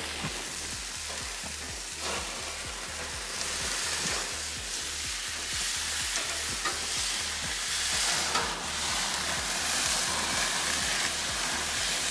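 Oily chimichurri-marinated skirt steak sizzling steadily on the hot grates of a gas grill running at over 600 degrees, with a few light clicks as the pieces are turned with metal tongs.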